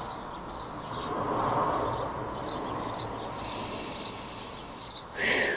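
A small bird chirping over and over in short high chirps, about three a second, over a steady outdoor rush that swells about a second in and then eases. A brief burst of noise comes near the end.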